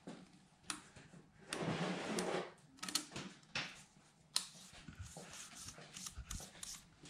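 Light metallic clicks and ticks of steel oil-ring rails and spacer being worked by hand into the grooves of a big-block piston, with a brief rustling noise about a second and a half in. The sharpest clicks come about three and four and a half seconds in.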